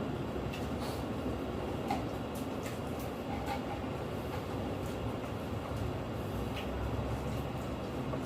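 Steady low mechanical rumble of running machinery or an engine, with a few faint clicks.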